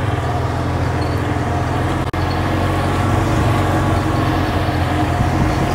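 Golf cart driving along, its motor running with a steady low hum.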